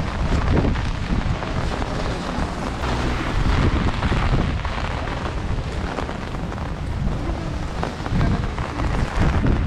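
Wind buffeting the microphone: a steady rushing noise with a heavy, uneven low rumble.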